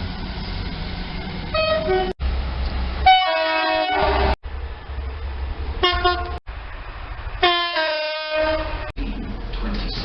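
Train air horns sounding four times, each a chord of several notes. The first and third are short blasts, the second and fourth are longer and drop in pitch partway through. Under them runs the low rumble of the trains, and the clips are cut together abruptly.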